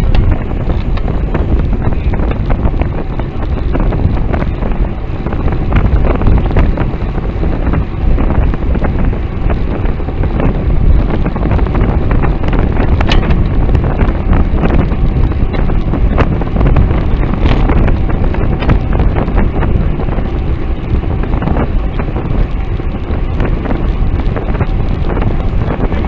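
Wind rumbling on the microphone of a bicycle-mounted camera while riding at road speed, a dense low noise that never lets up, with scattered small clicks.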